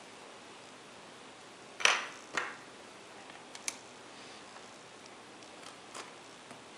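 Small hand tools and plastic parts clicking and tapping against a netbook's LCD bezel and the tabletop while the bezel's screw covers and retaining screws are removed. There are two sharp clicks about two seconds in, the first the loudest, then a lighter click and a few faint taps.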